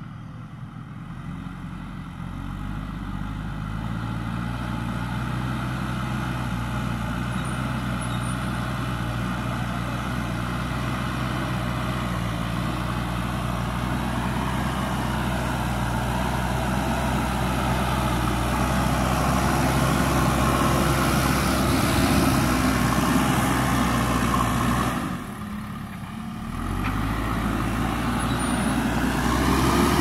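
JCB 3DX Super backhoe loader's diesel engine running under load as the front bucket pushes and levels soil. It grows louder over the first few seconds and dips briefly about 25 seconds in.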